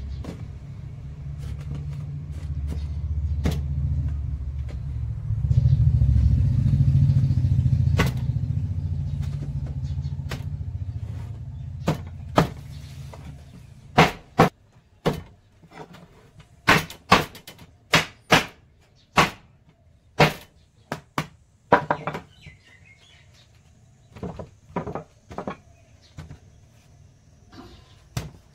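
A low motor rumble swells and then fades away over the first half. It is followed by a run of sharp, separate knocks, about one or two a second, that thin out near the end.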